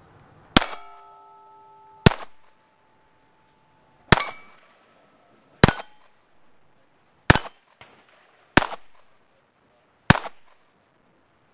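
A .22 rimfire pistol fired seven times at a steady pace of roughly one shot every one and a half seconds. After the first shot, and more faintly after the third, struck steel plate targets ring with a clear metallic tone that hangs on for a second or more.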